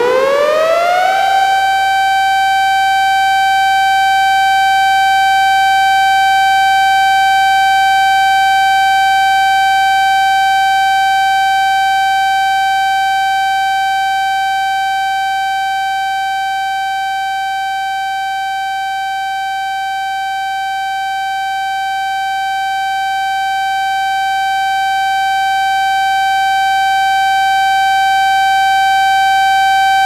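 Tracker 3001-120 emergency siren sounding its steady alert signal: it finishes winding up to full pitch about a second in, then holds one steady tone. The loudness swells and sinks slowly once and comes back.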